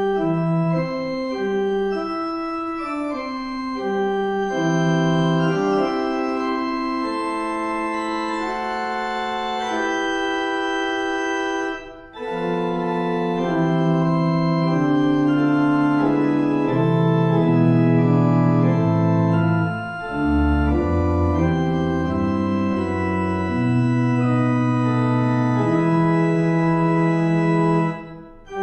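Organ music playing slow, sustained chords over a moving bass line. There is a brief break about twelve seconds in, and deep pedal notes come in near twenty seconds.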